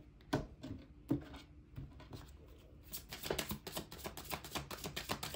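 A deck of tarot cards being handled: a few soft taps, then from about three seconds in a quick, busy run of card flicks and slaps as the deck is shuffled.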